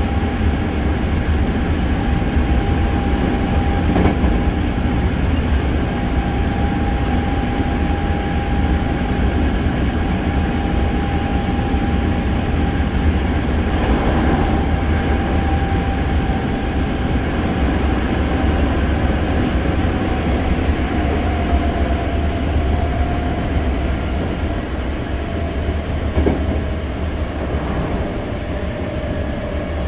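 Inside a Hankyu 6300 series electric train car running at speed: a steady low rumble of wheels on rail with a thin high whine over it. The whine sinks slowly in pitch over the last third, and a few single knocks come through.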